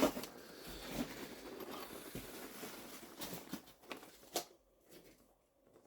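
Faint rustling and crinkling with scattered small knocks and clicks, a sharper click about four and a half seconds in, then near silence.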